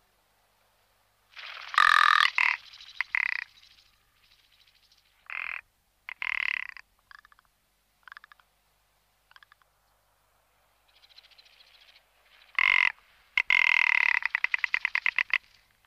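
Rock ptarmigan calling in a series of dry, croaking rattles. The calls come in separate bursts, the loudest about two seconds in, with a long rapid rattle near the end.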